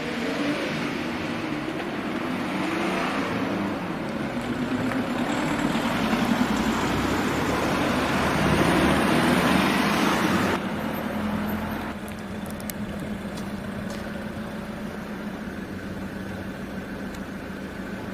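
Motor vehicle running, with road noise and a wavering engine pitch that builds up. About ten and a half seconds in it cuts suddenly to a quieter, steady drone with a constant low hum.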